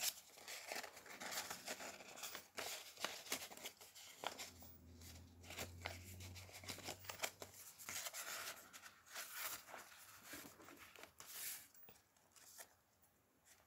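Faint rustling and light flicks and taps of paper and cardstock as the pages of a handmade junk journal are turned and handled, in several separate irregular strokes.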